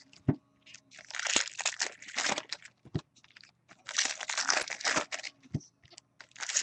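Baseball cards and their foil pack wrapper being handled. Two spells of rustling and crinkling, each a second or two long, start about a second in and about four seconds in, with a few light clicks between them.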